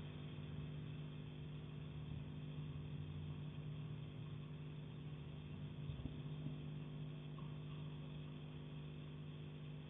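Steady low mechanical hum from an unidentified device, made of several even tones, with two faint knocks about six seconds in.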